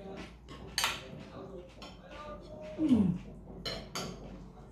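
Spoons and forks clinking and scraping against bowls and plates while eating, with a few sharp clinks. About three seconds in, a short vocal sound falls in pitch and is the loudest thing heard.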